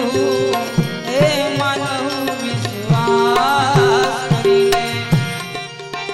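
Instrumental break in a Gujarati devotional song: tabla keeps a steady rhythm under a wavering, ornamented melody line and a few held notes.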